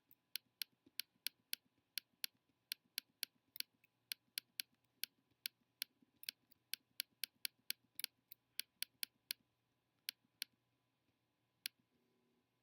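Computer mouse clicking in quick succession, about three sharp clicks a second, as spot after spot is retouched; near the end the clicking thins to a couple of single clicks.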